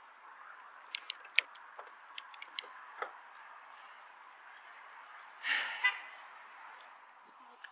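Bicycle on the move: a steady hiss of wind and tyres, a quick run of irregular sharp clicks and rattles about a second in, and a short louder rattle about five and a half seconds in.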